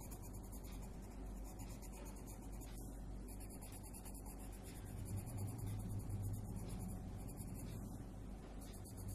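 Coloured pencil rubbing on drawing paper as a small area is shaded in, over a steady low hum.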